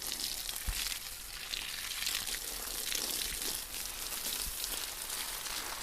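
Steady hiss with faint, scattered crackles: the background noise of the recording between two sneezes.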